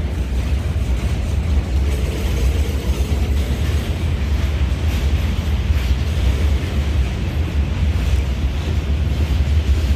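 Goods train of loaded open wagons rolling through the station, heard from the footbridge above: a steady low rumble of wheels on rails.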